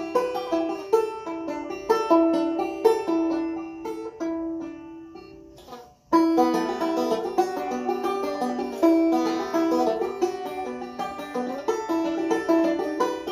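Solo banjo being picked, a quick run of plucked notes. The playing dies away about five seconds in, and after a brief gap a new phrase starts up.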